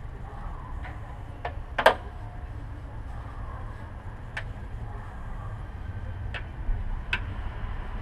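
About six sharp metallic clicks and clinks at uneven intervals, the loudest a little under two seconds in, from a wrench working the nut on the back of the alternator, over a steady low rumble.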